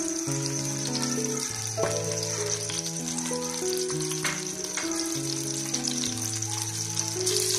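Sliced onions frying in hot ghee: a steady sizzle. Soft background music of slow held notes plays under it.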